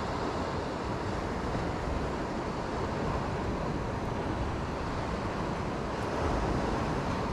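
Steady rushing noise of wind and sea, even throughout with no distinct knocks or tones and a slight swell about six seconds in.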